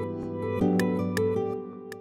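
Instrumental background music: soft pitched notes changing every half second or so, with a few sharp ticks about a second in and near the end.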